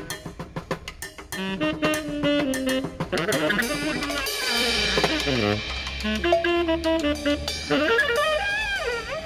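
Saxophone and snare drum playing jazz: the drum plays alone for about the first second, then the saxophone comes in with a melody of sliding, bent notes over the drum beat.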